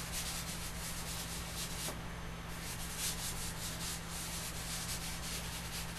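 Lecturer's chalk rubbing across the drawing surface in many short scratchy strokes, as cloud smoke is worked in and blended, over a steady low electrical hum.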